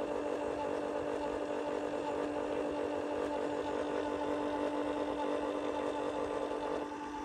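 Detroit Diesel 8V92 turbo two-stroke V8 diesel running steadily at idle, driving the air brake compressor as it builds system air pressure. Part of the sound drops away near the end.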